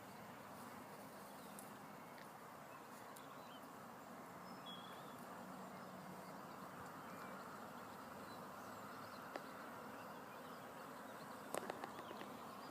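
Faint outdoor ambience with a few short, distant bird chirps. Near the end come several sharp clicks and knocks of the camera being handled.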